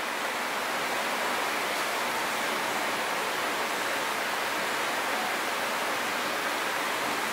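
Steady, even hiss with no speech, growing slightly louder over the first second and then holding level.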